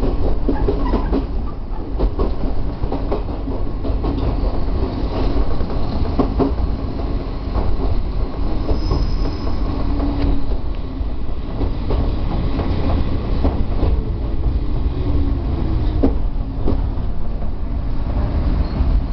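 Chichibu Railway 1000 series electric train heard from its cab while running. There is a steady low rumble, broken by irregular clicks as the wheels cross rail joints and points.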